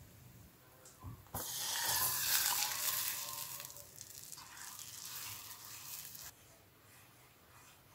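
Milk poured into a saucepan of hot foaming butter for a roux-based cheese sauce, hissing suddenly about a second and a half in, then fading to a softer sizzle as it is stirred with a silicone spatula.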